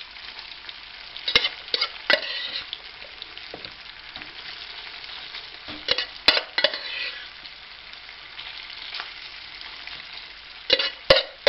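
Boiled potato chunks, onion and ham sizzling in fat in a frying pan, with clusters of sharp clicks and scrapes from a metal utensil against the pan about a second in, around six seconds in, and again near the end.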